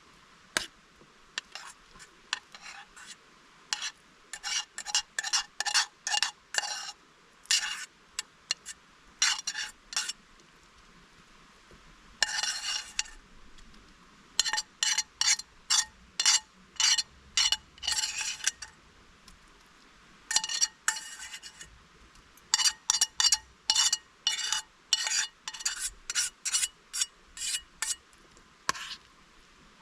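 A utensil scraping and clinking against cookware in quick, irregular strokes, in runs of several a second with short pauses. There is one longer scrape about twelve seconds in.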